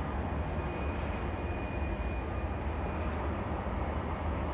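Distant jet aircraft at an airport: a steady low rumble and hiss, with a faint high engine whine for the first three seconds or so.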